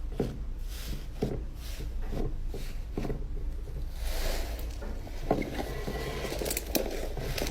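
Slime being squished and poked by hand, making soft sticky pops about twice a second, then a denser crackly stretch with scattered pops about halfway through.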